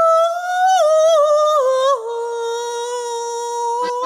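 A solo wordless song by a voice actor playing a chicken: one high voice steps up and down through several notes, then holds one long steady note from about halfway until it breaks off near the end.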